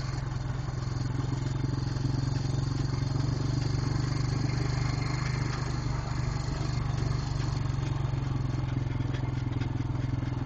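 ATV engine running steadily at a slow, even cruise, with a constant low hum and some rolling ground noise.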